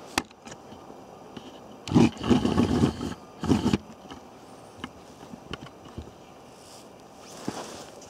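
Camera handling and rustling of a winter jacket while the camera is moved: a sharp click just after the start, then loud rough rubbing and knocking noise about two seconds in and again briefly about three and a half seconds in, with a few light ticks after.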